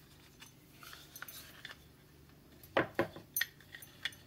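Small clicks and metallic clinks of a Garmin T5 GPS dog collar being handled: its opened plastic housing and metal strap buckle knocking together. Two sharper clicks come close together about three seconds in.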